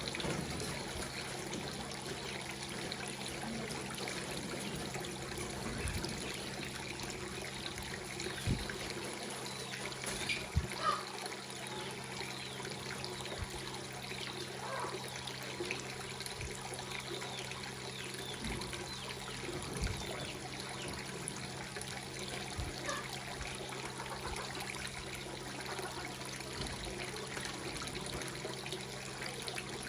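Water trickling steadily, as into a fish pond, over a low steady hum. A few brief louder splashes come about ten seconds in.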